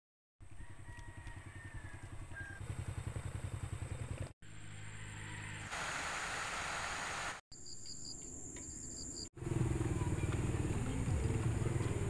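Several short outdoor recordings cut together, each ending abruptly. The loudest, from about nine seconds in, is a small motorcycle's engine running as it rides along.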